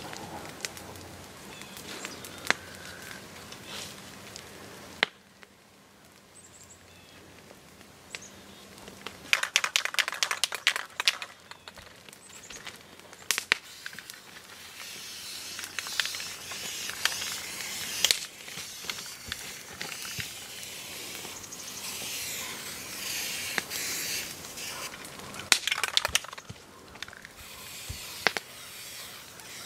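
Crinkling, scraping and rustling of a black tarp as a barefoot person moves across it and smears paint with gloved hands, with clusters of sharp clicks and crackles scattered through.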